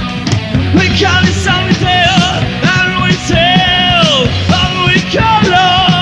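Post-punk/death rock band playing live, with drums, bass and electric guitar, recorded on cassette tape. A high pitched line bends up and falls away several times over the steady band.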